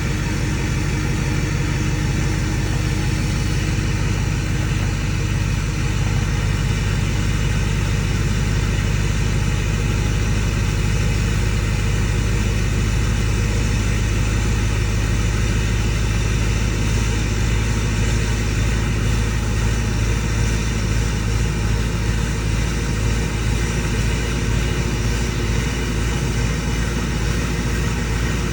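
Ford 6.4 Powerstroke V8 turbo-diesel idling steadily with the engine hot.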